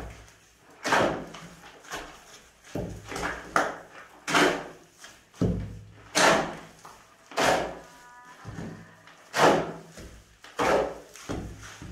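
Shovel scraping and chopping through a heap of sand-and-cement mortar on a concrete slab floor, hand-mixing it in repeated strokes about once a second.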